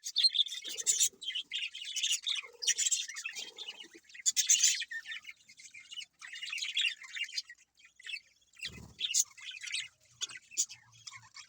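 Budgerigars chirping in quick, high bursts with short pauses between them, and a brief low thump about nine seconds in.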